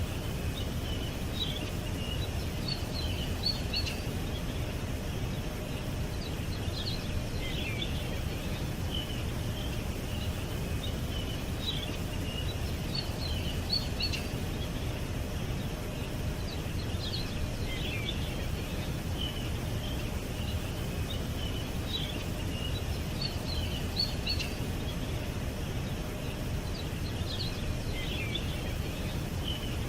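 Small songbirds chirping and twittering in short runs of high notes over a steady low background rumble. The same few calls come back about every ten seconds.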